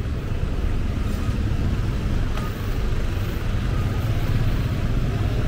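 Street traffic: a steady low rumble of motor vehicles running along a busy road.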